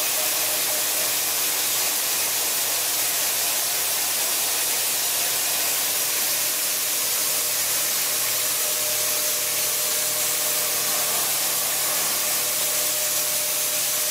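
CNC milling machine cutting through a plate with its cutter under mist coolant: a steady, even hiss with faint steady tones underneath.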